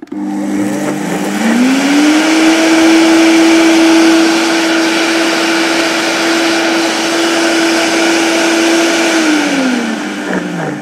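Oster Versa 1400-watt blender milling dry rice into flour: the motor spins up over about two seconds, runs steadily with the hard gritty rattle of rice being ground in the jug, then winds down in pitch near the end as the dial is turned off.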